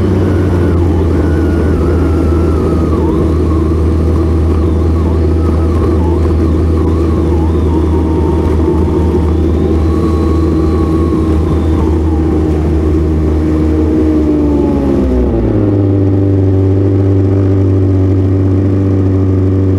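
Ski-Doo snowmobile engine running steadily under throttle. About fifteen seconds in it drops in pitch as the throttle comes off, then settles into a lower, steady idle.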